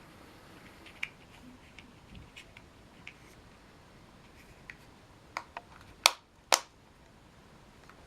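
Handling noise: scattered light clicks and taps, then two sharp, louder clicks about half a second apart, six seconds in.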